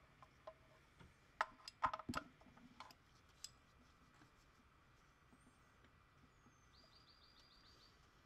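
A few sharp clicks and knocks of hands and a tool working on parts in a car's engine bay, bunched together between about one and a half and three seconds in, then near silence.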